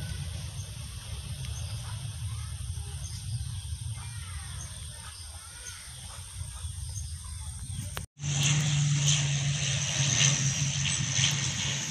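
Outdoor airfield ambience: a low steady rumble with faint bird chirps. After a sudden cut, the louder, steady low engine drone and high hiss of a twin-turboprop airliner on landing approach.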